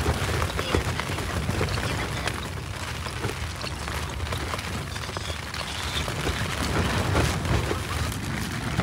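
Strong wind in a sandstorm, a steady low rumble of gusts buffeting the microphone, with many scattered ticks and taps like grains striking tent fabric.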